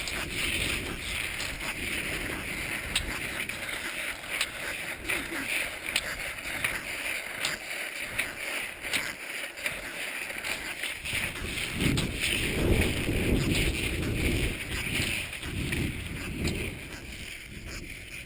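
Skis sliding over snow in a steady rhythm of strides, with short clicks from pole plants and wind rumbling on the camera microphone.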